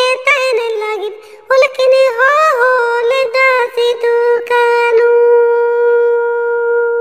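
Music: a high solo melody line sliding between notes, with a short break about a second in, ending on a long held note.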